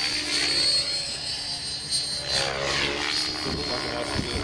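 A radio-controlled model aircraft flying, its motor whine sweeping down and up in pitch as it passes and turns.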